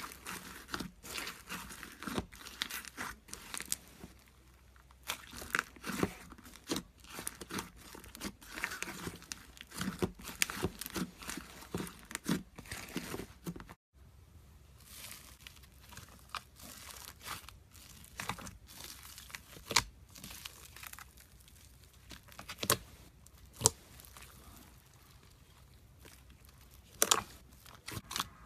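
Slime being squeezed and stretched by hand, crackling and popping in dense runs of small clicks. After a brief cut about halfway through the pops become sparser, with a few louder sharp snaps.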